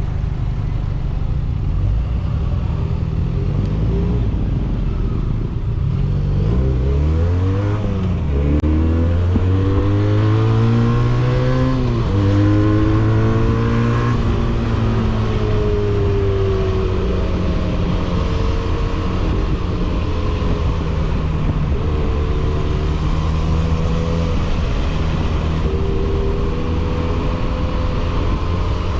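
Benelli 302S 300 cc parallel-twin engine through an aftermarket exhaust, heard from the bike: it runs at low revs for a few seconds, then accelerates with rising pitch, drops sharply at an upshift about twelve seconds in, and carries on at a steady cruising note with a couple of brief dips.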